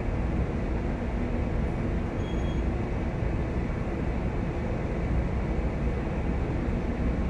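Steady low rumble of a large chemical tanker under way. There is a faint, brief high beep about two seconds in.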